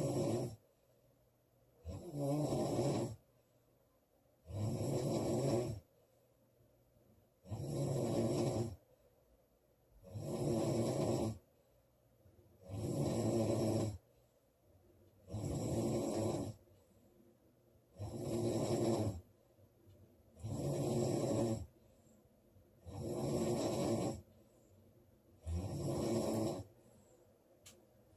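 A woman snoring loudly in a steady rhythm: a pitched snore about a second long, roughly every two and a half seconds, about eleven in all.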